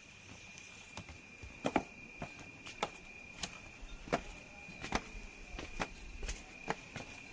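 A steady high insect trill, as from crickets at night, with scattered short clicks and taps at irregular intervals.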